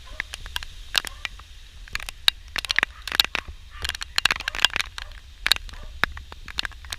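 Hurricane wind rumbling low on the microphone, with scattered sharp clicks and taps throughout, bunched about three and four seconds in.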